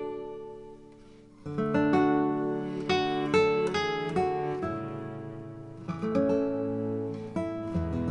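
Background music of acoustic guitar, plucked and strummed chords ringing out, easing off about a second in and picking up again half a second later.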